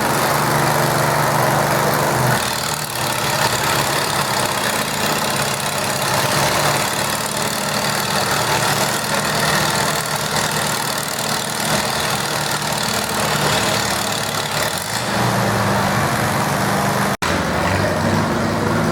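Farm tractor engine running under load in a deadweight pull. A steady engine note gives way after about two seconds to a rougher, noisier stretch, and the steady note comes back near the end. The sound cuts out for an instant shortly before the end.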